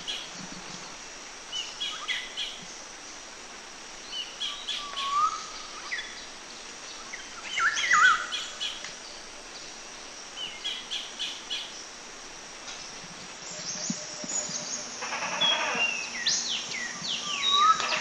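Small birds chirping and singing in short phrases every few seconds, with the calls growing busier and overlapping over the last few seconds.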